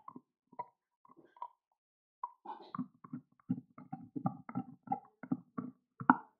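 Beagle gnawing an elk antler: teeth clicking and knocking against the hard antler in short strikes. A few scattered ones at first, then a steady run of about three a second from a little past two seconds in, the loudest near the end.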